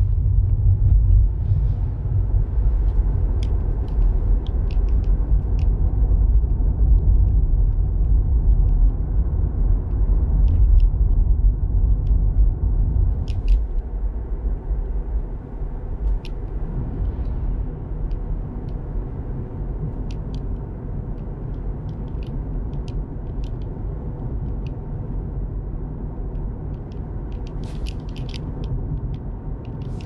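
Road and tyre noise inside the cabin of a 2021 Tesla Model 3 with double-glazed front windows, driving at about 30 mph: a steady low rumble with no engine sound, easing a little about halfway through. A few faint clicks come through it.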